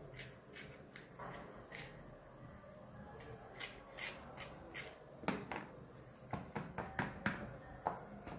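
Small knife slitting long green bhajji chillies and scraping out their seeds on a plastic cutting board: a run of short crisp clicks and snaps, coming faster and louder in the second half.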